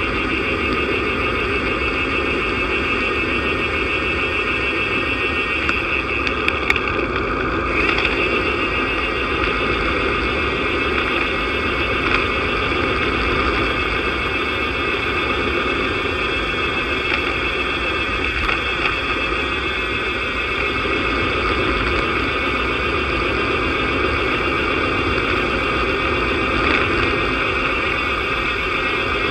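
Steady wind and tyre noise from a road bike rolling downhill at speed, heard through a camera mounted on the bike, with a few faint ticks.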